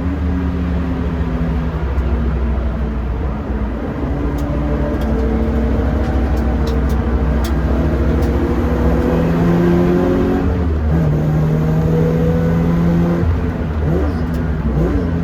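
Toyota 86's 2.0-litre flat-four engine running hard on track, its pitch climbing under acceleration and dropping back at shifts and lifts.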